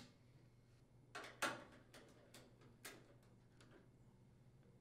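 A handful of faint, sharp clicks and taps spread over about two seconds, the loudest about one and a half seconds in, from a screwdriver and the control panel housing's mounting screws against the washer's plastic housing.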